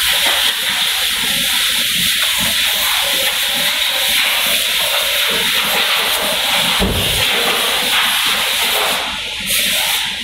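Refrigerant gas hissing steadily as an AC recovery-and-recharge machine charges it into a car's air-conditioning system, with a brief low thump about seven seconds in.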